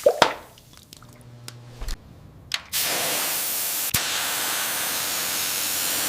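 A few sharp clicks, then a quiet pause, then about three seconds in a steady hissing spray jet starts up and keeps going, with one click partway through.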